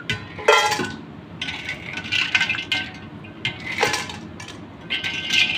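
Ice water splashing and dripping as a wire spider strainer scoops blanched green beans and ice cubes out of a steel pot and tips them into a steel bowl. Ice and metal clink against the steel, with two sharper clatters: about half a second in and again around four seconds in.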